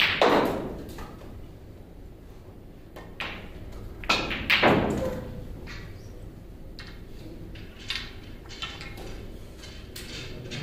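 Snooker balls being struck during play: sharp knocks at the start and a cluster about three to five seconds in, then fainter taps.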